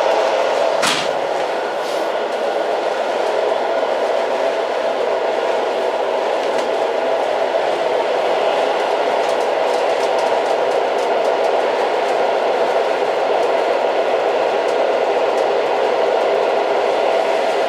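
An old train running steadily, heard as a continuous rumble of the cars on the track, with a sharp clack just under a second in and faint scattered ticks later.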